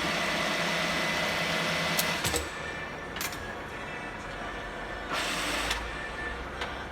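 Enshu VF2 milling machine running: a steady mechanical hum with a high whine for about two seconds that stops abruptly, then quieter running noise with a second brief louder spell about five seconds in.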